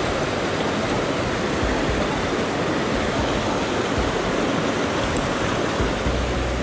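Small mountain stream rushing over boulders in a little cascade: a steady, loud wash of white water. A low rumble comes in near the end.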